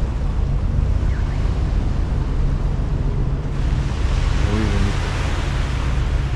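Steady low wind rumble buffeting the microphone, with a broad rushing hiss that swells from about halfway through.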